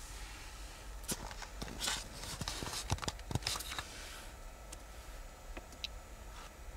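Rustling with a quick run of clicks and crackles from about one to four seconds in, over a low steady hum; a few faint ticks follow.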